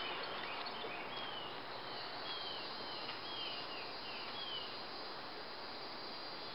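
A bird singing a run of short, down-slurred whistled notes, about two a second, over a steady high-pitched insect drone that comes in about two seconds in.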